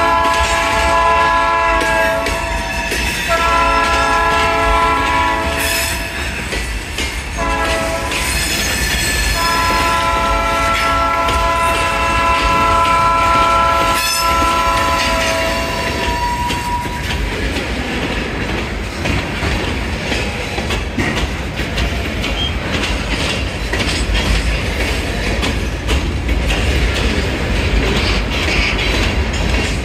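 Diesel locomotive's air horn sounding a chord of several notes in the grade-crossing pattern: long, long, short, then a long blast that stops about halfway through. Freight cars roll past on the rails throughout, and their rumble and clatter is all that remains after the horn stops.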